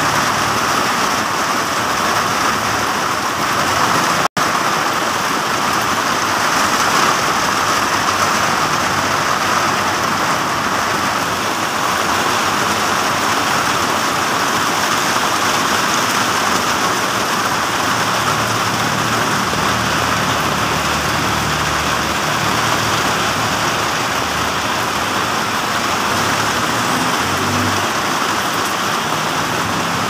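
Heavy typhoon rain pouring steadily onto wet pavement and a petrol-station canopy.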